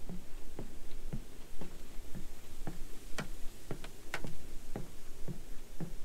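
Footsteps on a wooden boardwalk: steady walking, about two knocking steps a second on the planks, two of them sharper about three and four seconds in.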